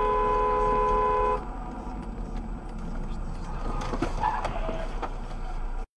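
A two-note car horn held steady, stopping about a second and a half in, then the mixed noise of road traffic with a few sharp ticks.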